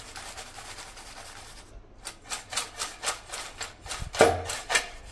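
Fried potato wafers rustling and rattling against a steel bowl as the bowl is shaken by hand: a steady rustle at first, then a run of crackly shakes about three a second.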